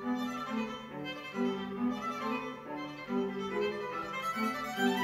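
Background music: a melody played on violin and other bowed strings, with the notes changing about every half second.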